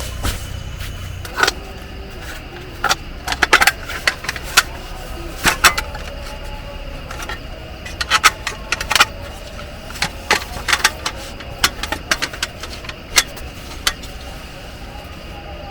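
Metal camping cookware and utensils being handled, giving irregular sharp clinks and clatters, some ringing briefly, over a steady background rush.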